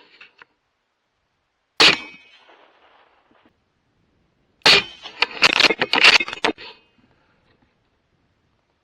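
A single sharp rifle shot about two seconds in, with a tail that dies away over a second or so. About three seconds later comes a quick run of sharp cracks and metallic clanks lasting about two seconds.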